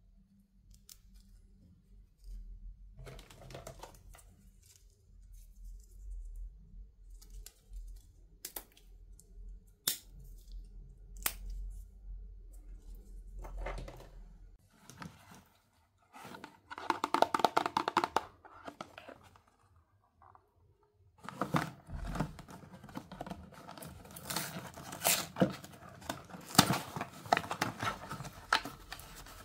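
Toy packaging being handled and unwrapped: scattered clicks and taps of plastic, a short burst of wrapper crinkling a little past halfway, then steady crinkling and tearing of wrappers through the last third.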